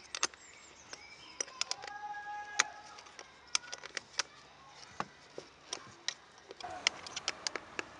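A small metal screwdriver turning and seating the screws on a plastic air-filter housing: irregular light clicks and ticks of metal on metal and plastic.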